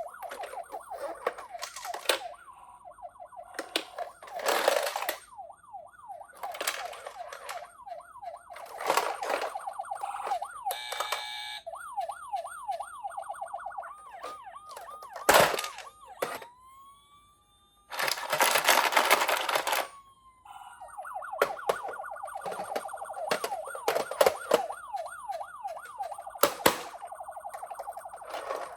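Electronic siren of a toy ambulance minicar, a fast yelping wail that sweeps quickly up and down, dropping out now and then. It is broken by sharp knocks and a couple of longer rushes of rattling noise as the toy cars run down a slope.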